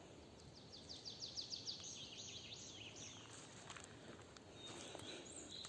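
A songbird singing faintly: a quick run of short, high, falling notes lasting about two seconds, followed by a few faint clicks.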